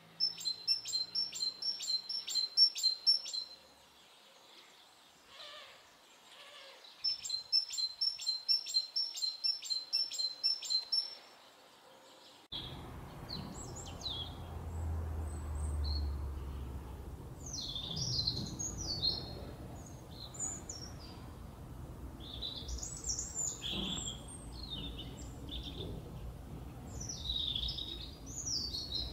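Small songbirds: one sings a fast run of evenly repeated high notes, about four or five a second, twice with a pause between. After a sudden change of background about halfway through, scattered short chirps and calls from several birds sound over a low rumble.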